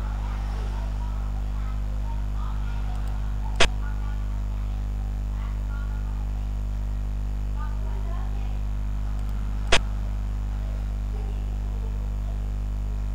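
Two sharp clicks of xiangqi pieces being placed on a game-replay board, about six seconds apart, each marking a move. A steady low hum runs underneath.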